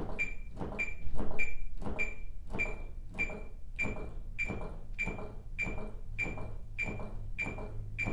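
Steady chest compressions on a CPR training manikin, each push giving a sharp ringing click, about two a second (roughly 115 a minute, within the 100–120 target rate).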